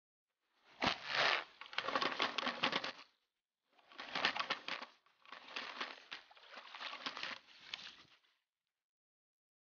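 A sharp thump about a second in as the bow is shot. Then several seconds of rapid clicking, rattling and splashing, in three bursts, as an arrowed armored catfish (pleco) thrashes at the surface on the bowfishing line and is hauled toward the bank.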